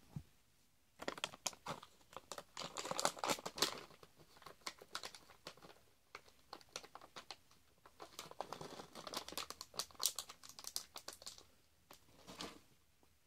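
Irregular crinkling and rustling, as of a crinkly material such as plastic or paper being rummaged through, in two long spells with a short burst near the end.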